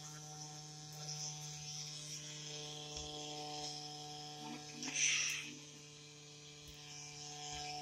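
Steady electrical hum, with a brief hissing rush about five seconds in.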